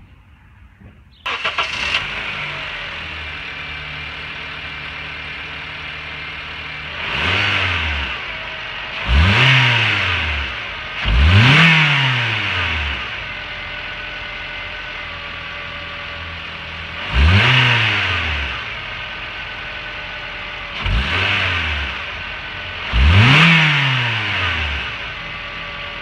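An eighth-generation Honda Civic's four-cylinder engine starting about a second in, then idling and revved six times in short blips that rise and fall in pitch. The turbo whistler fitted in the stock intake air box adds no audible whistle.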